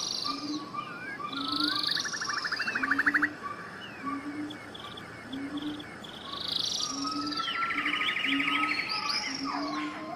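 A dense chorus of many birds calling: chirps, whistled glides that swoop up and down, and rapid pulsing trills, several at once. Under them a low short note repeats at a steady pace, a little more than once a second.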